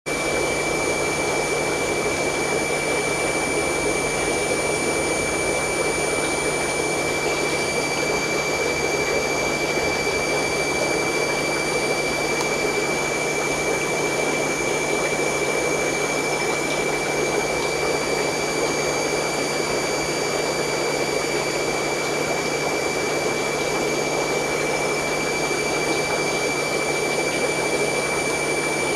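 Aquarium air pump and filter running: a steady hum and hiss with a constant high-pitched whine over it.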